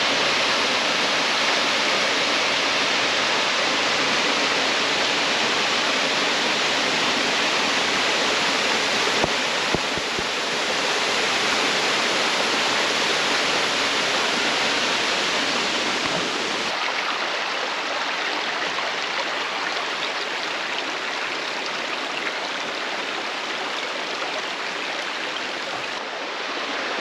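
Munising Falls, a waterfall, rushing steadily: a loud, even hiss of falling water. A little past halfway the deep rumble drops away and the sound thins.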